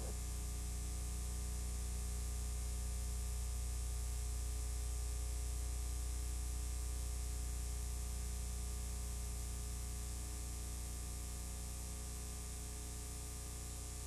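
Steady electrical mains hum with a buzz of evenly spaced overtones over a constant hiss, and no other sound: the background noise of an old documentary film soundtrack.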